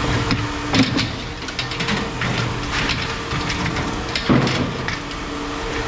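Scattered knocks and clanks of scrap metal being worked loose and handled, with two louder bangs, one about a second in and one past the four-second mark, over a steady hum.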